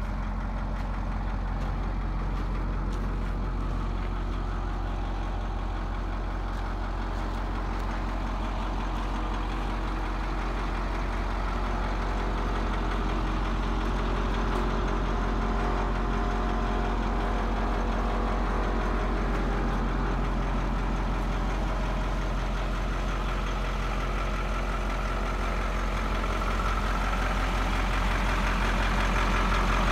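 1984 Ford 8000 refueling truck's engine idling steadily, a little louder near the end.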